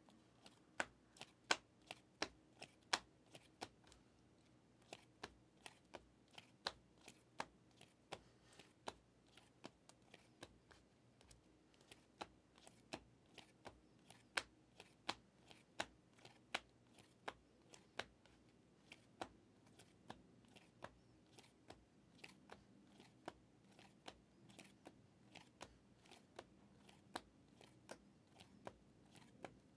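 A stack of glossy Panini Prizm trading cards being flipped through by hand. Each card is slid off the front of the stack with a sharp click, irregularly at about two a second.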